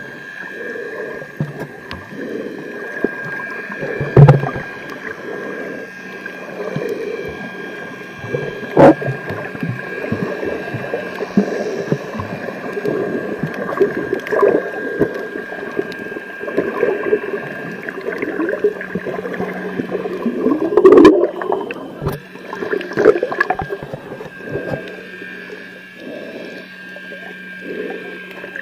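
Sound recorded with the microphone under water: muffled, irregular water movement and gurgling, with a few sharp knocks and a steady faint hum underneath. The loudest knock comes a little after two-thirds of the way through.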